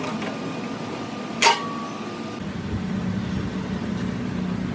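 One sharp metallic clank about one and a half seconds in, a steel camshaft piece set down on the lathe's steel carriage, ringing briefly at a single pitch. A steady low machine hum of the workshop runs underneath.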